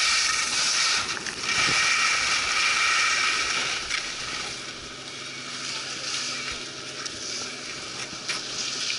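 Skis hissing and scraping over packed snow at speed. The sound fades about four seconds in as the skier slows almost to a stop.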